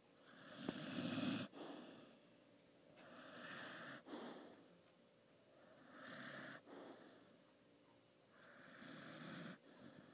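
A sleeping dog snoring faintly, four slow rasping breaths about two and a half seconds apart.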